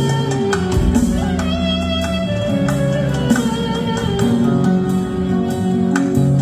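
Live band playing: a clarinet carries the melody, sliding between held notes, over keyboard accompaniment and a drum kit beat.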